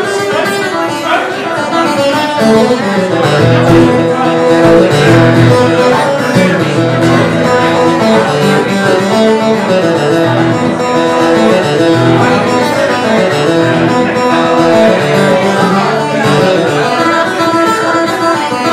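Live acoustic guitar playing a tune over a moving bass line.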